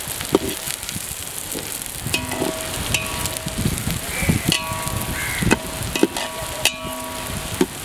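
Chopped onions sizzling in oil in an aluminium pot while a steel spoon stirs and scrapes them. The spoon knocks against the pot many times, and from about two seconds in some knocks set the pot ringing briefly.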